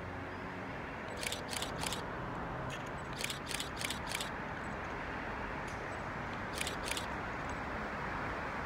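Steady outdoor background rumble of distant traffic and wind, with short sharp high chirps in three groups: three about a second in, four around the middle, and two near the end.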